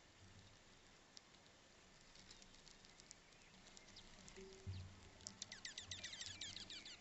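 Quiet at first, then from about five seconds in a fast run of faint, high, quick chirps from small finches, preceded by a soft low thump.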